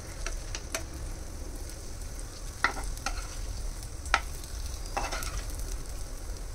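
Potato cutlets frying in shallow oil in a non-stick pan, with a faint steady sizzle, while they are turned over with plastic and wooden spatulas. The spatulas give a few sharp clicks and scrapes against the pan, the loudest about four seconds in.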